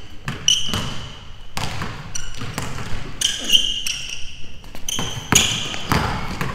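Basketball dribbled on a hardwood gym floor, sharp irregular bounces mixed with short high sneaker squeaks as the players cut and drive.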